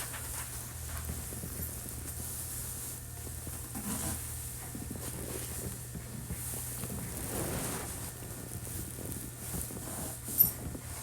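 Cabin of a Hankyu 1300 series train standing still while held at a signal: a steady low hum from the car's onboard equipment with a faint hiss. One sharp click sounds near the end.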